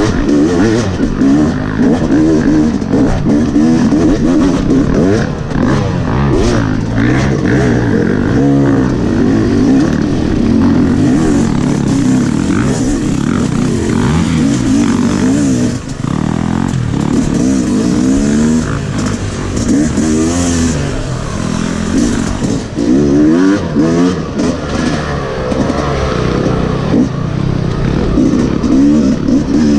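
Dirt bike engine ridden hard, its pitch rising and falling again and again as the throttle is opened and closed, with wind noise on the microphone.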